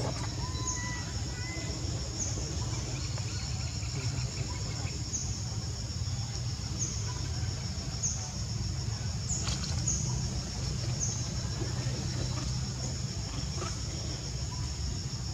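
Insects chirring steadily, a high continuous trill with repeated chirps over it, above a low steady rumble, with a faint click or two in the second half.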